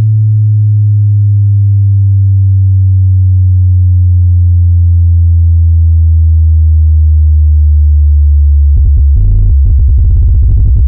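Synthesized bass test tone: a loud, sustained deep sine tone that slowly falls in pitch, with fainter higher tones gliding down with it. About nine seconds in, a fast, choppy electronic bass pattern cuts in over it.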